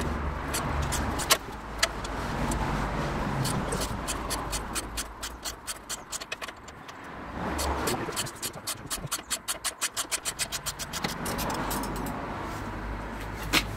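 Hand socket ratchet clicking in quick even runs as it turns a bolt-extractor socket gripping a rusted, rounded-off bolt.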